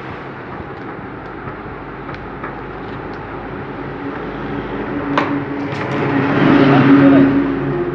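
Hands handling a cardboard shipping box and its plastic-bagged contents, with two sharp clicks about five seconds in. A steady low hum runs underneath and grows louder near the end.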